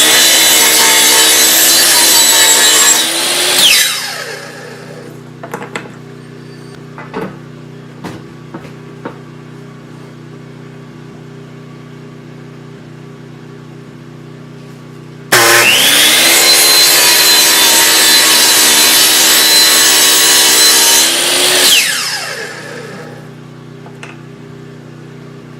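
Electric power saw cutting wooden beams twice. Each time the motor spins up with a rising whine, cuts, then winds down with a falling pitch: the first cut is short and right at the start, the second begins about fifteen seconds in and runs about six seconds. A steady low hum and a few light knocks fill the gap between the cuts.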